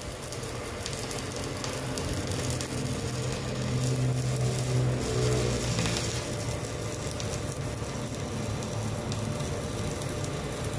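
Stick-welding arc from a 2.5 mm electrode burning steadily at about 103 A on a Classic ARC 200E inverter welder, with a low hum underneath that is strongest a few seconds in.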